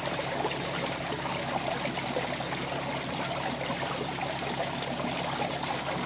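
Water running and splashing steadily into a fish-rearing tank: an even, continuous rushing and trickling, with a faint low steady hum underneath.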